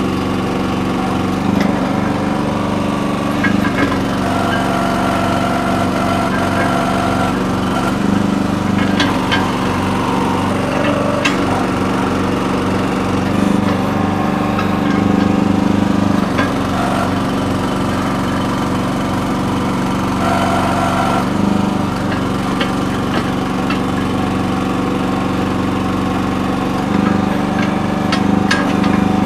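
Small gas engine of a Red Rock mini backhoe running steadily while it digs, getting louder for a few seconds at a time as the hydraulics take load. A few sharp clicks and knocks are heard over it.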